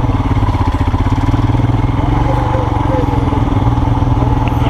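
Motorcycle engine running steadily at low revs as the bike rolls slowly up to a stop, with faint voices in the background.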